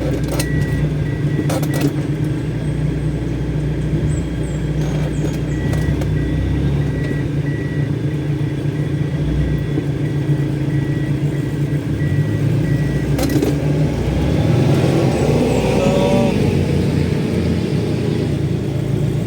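An off-road 4x4's engine running steadily under load. A faint, high, repeated beep sounds for most of the first two-thirds, and a wavering, rising-and-falling whine comes in near the end.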